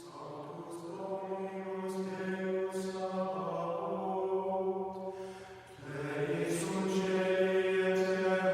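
The opening of a new music track: slow, chant-like long held notes swelling in after a moment of silence. It plays as two long phrases, the second swelling in about six seconds in.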